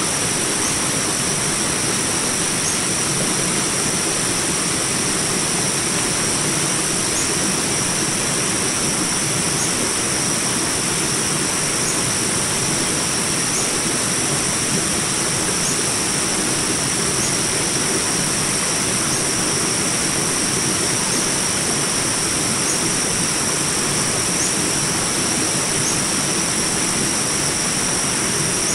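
Small jungle river rapids rushing steadily, with a constant high-pitched whine over the water and faint short chirps every second or two.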